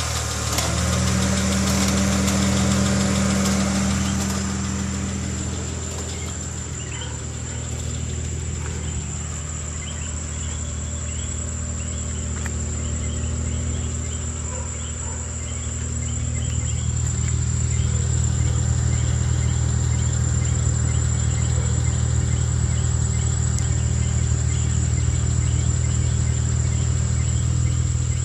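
2005 Acura RL's V6 engine running steadily, its hum growing louder about sixteen seconds in.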